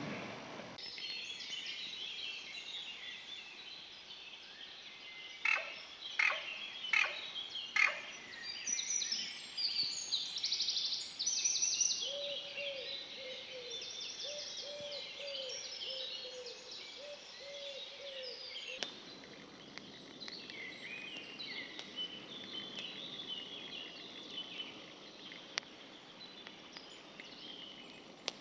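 Woodland birds singing, a mix of many chirps and trills. About five seconds in come four louder calls roughly half a second apart, and in the middle a lower cooing note repeats in short runs.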